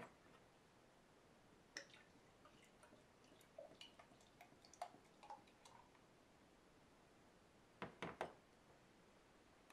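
Ale poured from a glass bottle into a stemmed tulip glass: faint trickling glugs and splashes with small clinks for a few seconds, then a cluster of three knocks near the end as the glass and bottle are set down on the counter.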